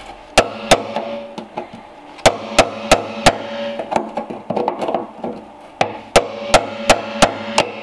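Hammer driving a punch against the rusted steel lock ring of a fuel pump on top of a steel fuel tank, knocking the ring round to free the pump. About a dozen sharp metallic blows in three quick runs, roughly three a second, each with a short ring.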